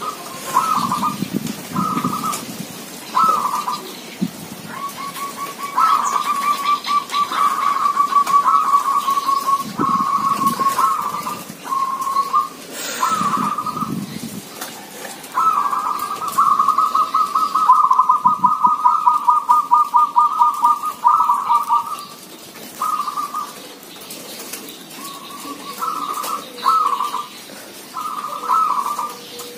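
Several caged local zebra doves cooing in turn, short phrases alternating with long rolling trilled coos, two birds overlapping at times.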